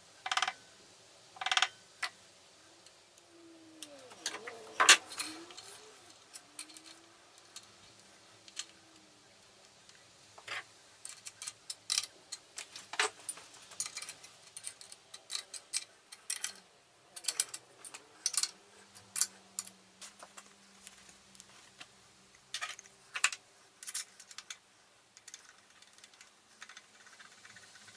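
Hand-work clatter of clamping steel on a milling machine table: a soft-faced mallet tapping the workpiece down onto parallels, then steel clamps, T-bolt and spanner clicking and clanking as the clamp is tightened. Short sharp clicks and knocks come at irregular intervals, thickest in the second half.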